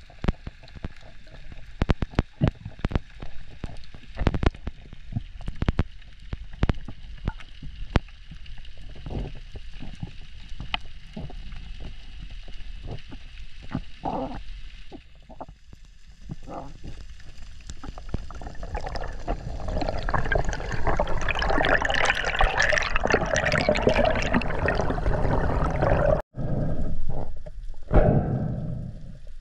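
Underwater sound picked up by a diver's camera: scattered sharp clicks and knocks over a low hiss, then, about two-thirds of the way in, a louder rush of bubbling, churning water that cuts off sharply near the end.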